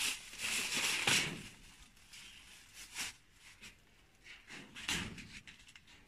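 Wire-mesh aviary door rattling and plastic bags rustling as they are handled, in short scattered bursts, with a sharp knock about three seconds in.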